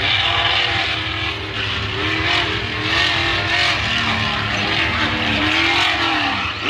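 Modified-class tuff truck engine revving hard on a dirt course, its pitch rising and falling with the throttle, with a drop in pitch near the end.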